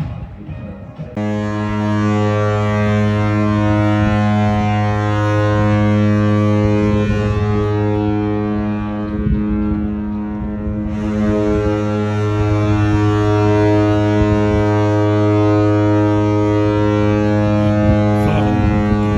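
Cruise ship's horn sounding one long, deep, steady blast as the ship casts off, starting about a second in.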